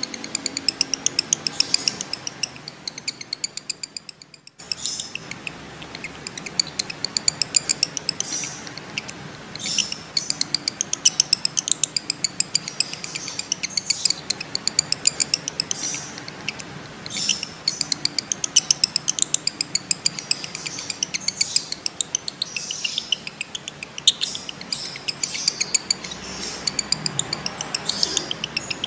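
Male lovebirds in breeding condition giving long 'ngekek' chatter: long runs of sharp, high chirps repeated many times a second, broken off briefly about four seconds in.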